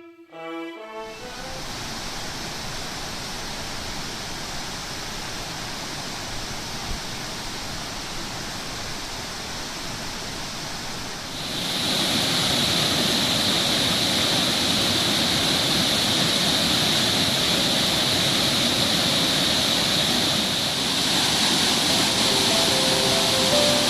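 Waterfall: the steady rush of falling water. About halfway through it becomes louder and brighter.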